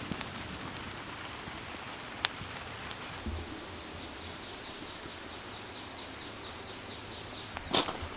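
Steady rain falling. Midway a bird gives a rapid trill of quick, evenly spaced falling high notes, about five a second, for roughly four seconds. There is a sharp click about two seconds in and a louder knock near the end.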